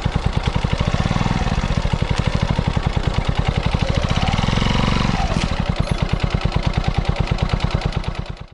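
Kawasaki Eliminator 125's single-cylinder four-stroke engine running at low revs, picked up close to the muffler outlet so each exhaust pulse comes through distinctly. The note swells briefly about a second in and again around four to five seconds in, then cuts off abruptly near the end.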